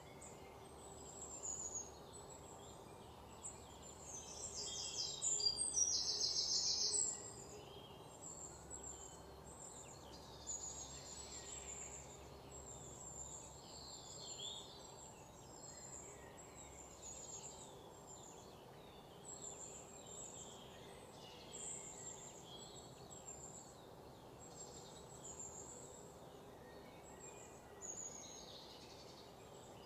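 Birds chirping, many short high calls throughout, with a louder rapid trill from about five to seven seconds in, over a faint steady hum.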